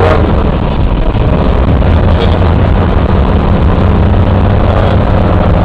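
Car engine running with tyre and road noise, heard from inside the cabin while driving steadily along a street; an even, low hum with a rushing noise over it.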